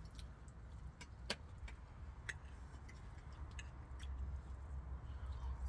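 A metal fork clicking and scraping against a ceramic plate while food is cut and picked up, light scattered clicks about every half second, over a low steady rumble that grows slightly near the end.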